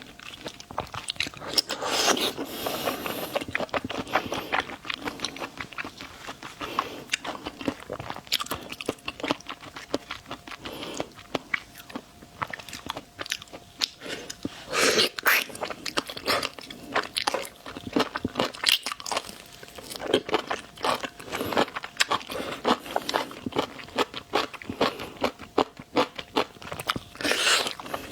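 Close-miked biting and chewing of large shrimp, with dense, irregular crunching and wet crackling. Louder bites come about 2 seconds in, midway and near the end.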